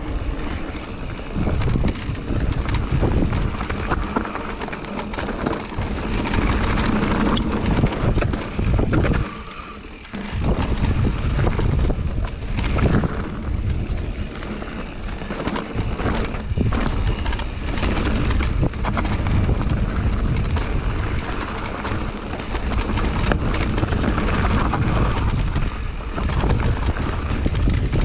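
Mountain bike descending a dirt trail: wind rushing over the microphone, with tyre noise and the clatter of the bike over bumps. The noise eases briefly about ten seconds in.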